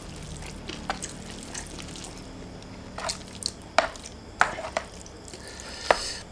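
Close-up eating sounds: wet chewing of fried instant noodles, with a few sharp clicks scattered unevenly through, from chopsticks against the plate and the mouth.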